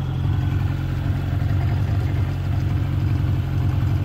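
Bangka pump boat's small outboard engine running steadily with a low drone as the boat is eased in to the beach.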